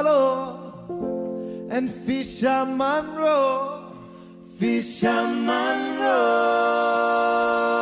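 Music: a song with sung phrases that bend in pitch, then a long steady held note from about five seconds in.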